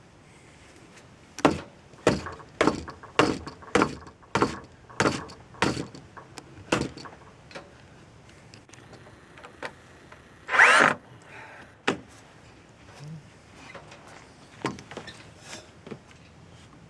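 Hammer blows on wood, about ten in a steady run roughly every half second, followed a few seconds later by one brief, louder scraping sound and a few lighter knocks.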